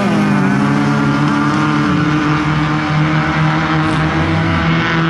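Off-road race vehicle's engine running, loud and continuous; its pitch drops sharply right at the start as the revs fall, then holds nearly steady with a slight further drop about two seconds in.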